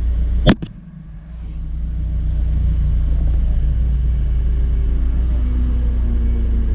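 Porsche 944's four-cylinder engine running with a steady low rumble. A sharp double click comes about half a second in, the sound drops for a moment, then the engine note builds again, its pitch rising slowly.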